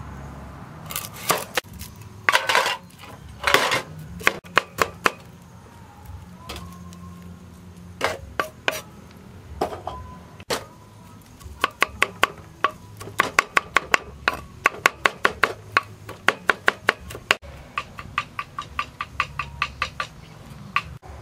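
Kitchen knife chopping on a wooden chopping board: quick runs of sharp taps, about five strokes a second, in the second half. Earlier come a few louder scraping and handling sounds.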